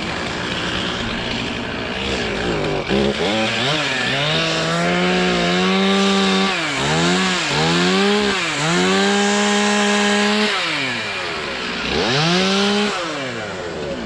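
Gas chainsaw revving repeatedly: the engine speeds up to a steady high pitch, holds, then drops back and climbs again several times, as the throttle is opened and released.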